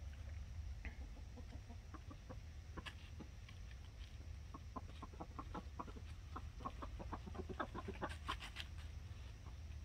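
Buff Orpington chickens clucking softly, a flock that is settling towards going in to roost. The short clucks come sparsely at first and then thicken into a quick run in the second half, with a few louder, sharper notes a little past eight seconds.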